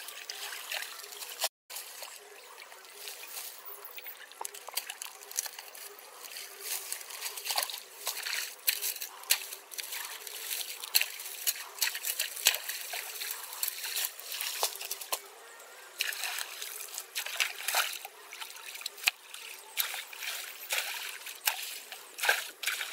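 Shallow water trickling and sloshing in a drainage channel, with frequent sharp splashes as sticks and debris are pulled out of the clog and the water is stirred with a pole.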